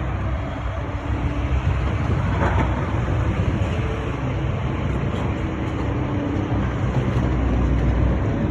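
Steady road traffic and vehicle engine noise with a low rumble and a faint engine hum.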